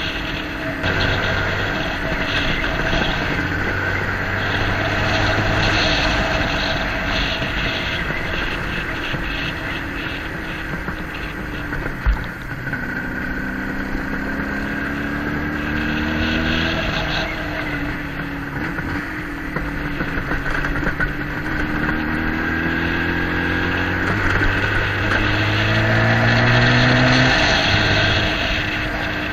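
Motorcycle engine running under way, its pitch climbing several times as it accelerates and then dropping back as it changes gear. A single sharp knock about twelve seconds in.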